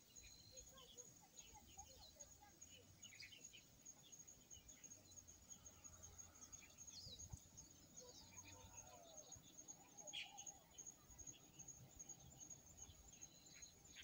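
Faint natural ambience: a steady high insect trill with scattered short bird chirps and calls, one a little louder about ten seconds in.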